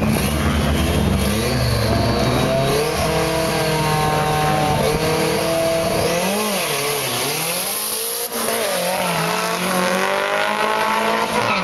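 Two Datsun 1600 drag cars at the start line and launching down a drag strip, one of them powered by a turbocharged SR20DET four-cylinder. The engines rev, their pitch rising and dipping, then climb again as the cars accelerate.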